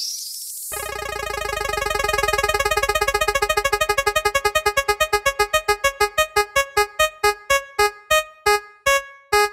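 Spinning prize-wheel sound effect: a rapid run of short, pitched electronic ticks that gradually slows to about two a second as the wheel comes to rest.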